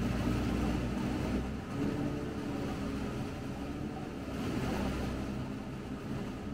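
Sherp amphibious ATV's diesel engine running steadily as the vehicle floats and paddles across a lake, heard from inside the cab, its note shifting a little a couple of times.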